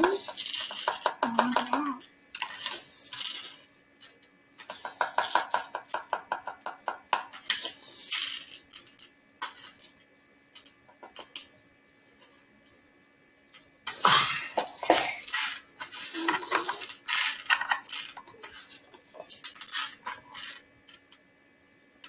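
Spoons scraping and clinking against plastic tubs while scooping up rice, in bursts of rapid scraping clicks with short pauses between.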